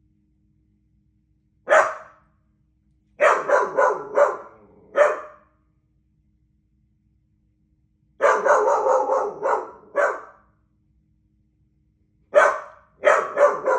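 A doodle dog barking at birds in repeated runs of quick barks: a single bark, then clusters of four to seven barks separated by pauses of a few seconds.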